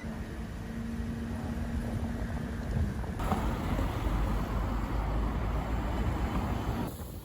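Wind buffeting the microphone as a low, gusty rumble, with a steady hum for the first few seconds. The sound changes abruptly about three seconds in and again near the end.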